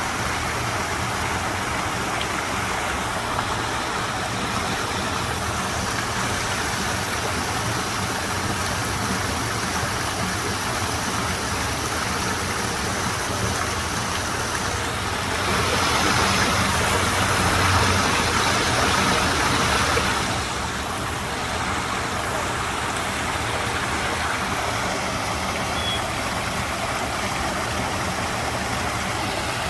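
Waterfall pouring into a garden pond: a steady rushing splash that swells louder for about five seconds past the middle, then settles back.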